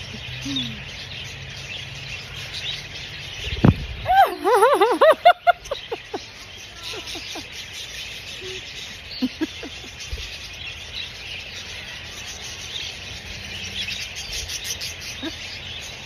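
A flock of budgerigars chirping and chattering steadily, with a brief louder run of rapid wavering sounds about four seconds in.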